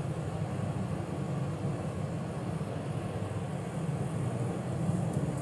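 Steady low rumble of background room noise with no distinct events.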